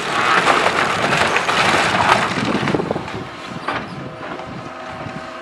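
A house's walls cracking and crashing apart as an excavator's grab tears at them, with debris breaking off and falling. The crashing eases after about three seconds, leaving the excavator's engine running steadily.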